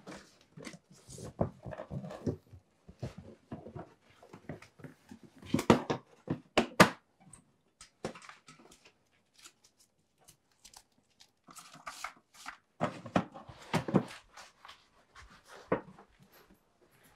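Rummaging through magazines, papers and a metal tin on a wooden desk: rustling and shuffling with light knocks and clatter. The handling is loudest in two bursts, about a third of the way in and again about three quarters of the way through.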